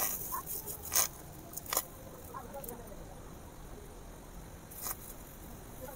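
A metal spoon clinking and scraping against a small iron karahi as pancake batter is spooned in. There are a few sharp clinks: one at the start, one about a second in, another shortly after, and one near the end.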